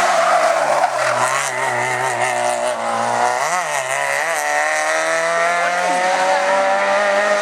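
Race car engine running hard under load: its pitch dips and jumps twice in quick succession midway, then rises slowly and steadily as the car accelerates.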